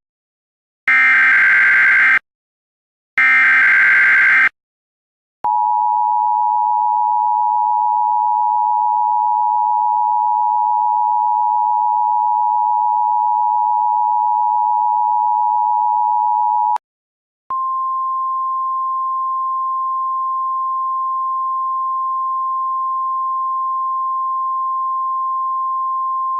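Emergency Alert System audio: the last two of three short, screechy SAME digital header bursts, then the two-tone EAS attention signal (853 and 960 Hz together) held steadily for about eleven seconds. After a brief gap, a single steady 1050 Hz weather-radio-style alert tone sounds for about ten seconds and stops near the end.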